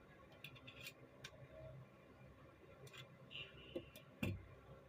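Faint, scattered metal clicks and taps from handling a Zastava pistol and its magazine, with a brief scrape about three and a half seconds in and a heavier knock just after four seconds.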